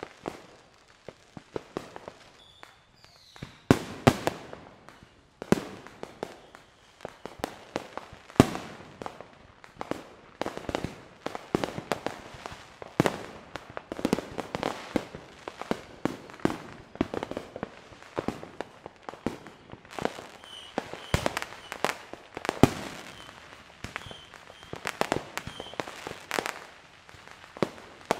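Many fireworks going off near and far: an irregular string of bangs and pops of varying loudness, several sharp and loud, with crackling in between.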